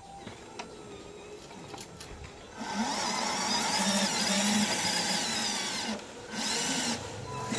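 Small electric motor and gearbox of a toy RC construction vehicle whirring, starting about two and a half seconds in and cutting out briefly twice near the end.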